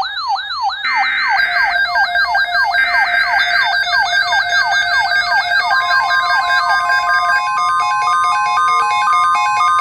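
Emergency Alert System tones: two short buzzy SAME header data bursts over a synthesized siren of fast, repeating falling sweeps with a high warble above. About six seconds in, a steady 1050 Hz NOAA Weather Radio alert tone joins, and about a second later the sweeps change to an alternating two-note hi-lo.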